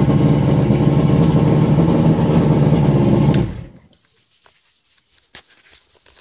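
Johnson 85 outboard, a V4 two-stroke, running steadily, then shut off and cutting out about three and a half seconds in. After that come only a few faint clicks and handling noises.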